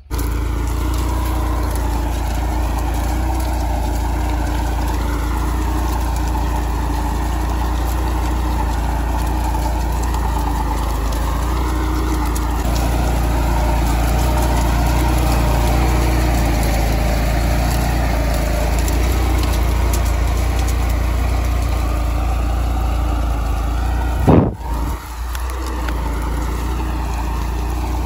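New Holland 3630 tractor's three-cylinder diesel engine running steadily under load as it pulls a reversible mouldboard plough through the soil. A single brief low thump stands out about three-quarters of the way through.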